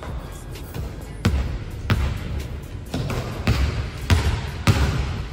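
A basketball bouncing on a hardwood gym floor, about six bounces at an uneven pace, each ringing briefly in the big hall.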